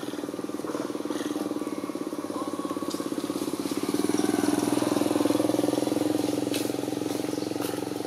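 A small engine running steadily with a fast pulsing hum, growing louder for a couple of seconds about halfway through and then easing off, with a few faint ticks.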